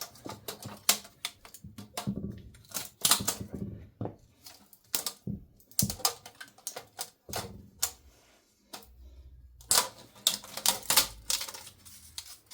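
Irregular metallic clicks, clinks and knocks of tools and metal parts being handled on a stripped 2.2 L Ecotec engine during teardown, with a short lull about two-thirds of the way through.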